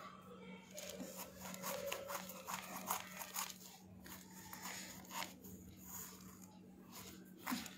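Kitchen knife cutting into a raw pumpkin: a run of small crunching clicks as the blade works through the rind and flesh, over a faint steady hum.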